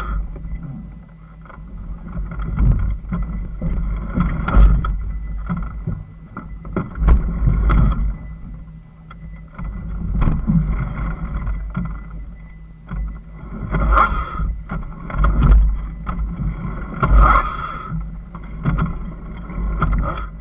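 Off-road motorcycle engine running at low speed up a rough, rocky trail, its loudness swelling and easing as the throttle and terrain change, with wind rumble and jolts on the microphone.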